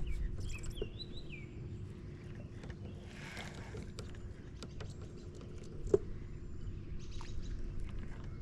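Low rumble of wind on the microphone under a faint steady hum, with scattered clicks and knocks; a bird chirps a few times about a second in, and one sharp knock comes about six seconds in.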